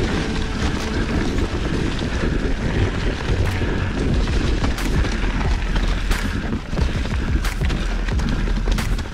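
Specialized Stumpjumper ST Alloy 29 mountain bike running fast down singletrack through a thick layer of dry fallen leaves: a steady rush of tyres through the leaves over a low rumble. From about three seconds in, a sharp knock every second or so as the bike rattles over roots and rocks.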